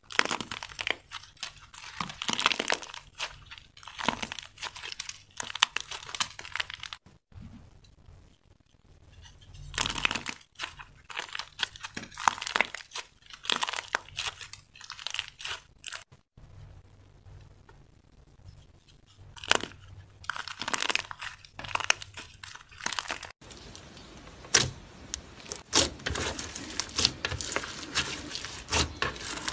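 Slime being squished and stretched by hand, giving bursts of crackling, popping clicks that come in clusters and break off abruptly a few times.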